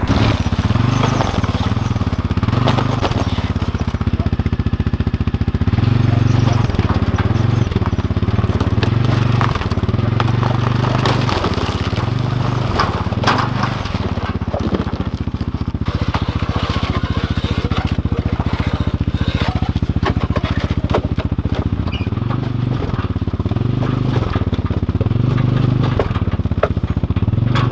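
Quad ATV engine running with the throttle rising and falling as it hauls a loaded trailer over wooden planks laid across an ice heave, with crunching ice and knocks from the planks.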